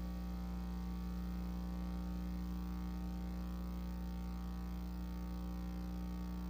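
Steady electrical mains hum with a buzzy edge, holding one unchanging pitch with no other sound over it.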